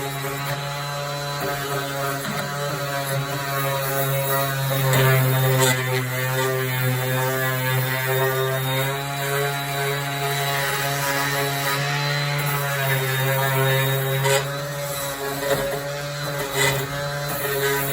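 Cordless electric sander running steadily with a droning hum. Its pitch sags a little at times as a small part is pressed against the sanding pad, and a few brief clicks come in the middle and near the end.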